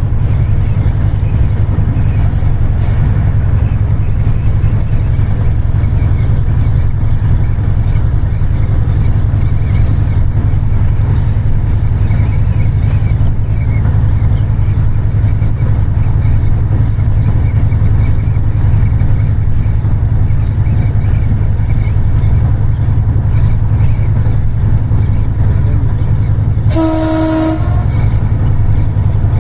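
Passenger train running with a loud, steady low rumble. Near the end the train's horn gives one short blast.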